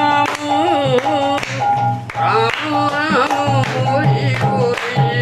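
Music: a singer with instrumental accompaniment, repeated held notes and a steady percussion beat.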